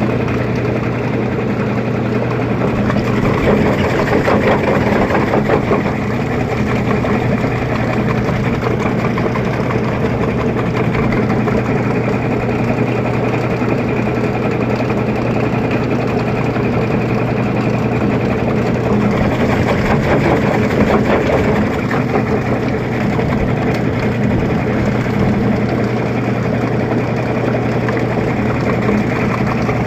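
LG Fuzzy Logic TurboDrum 14 kg washing machine in its spin cycle: a steady motor hum under the whir of the spinning drum, swelling a little twice.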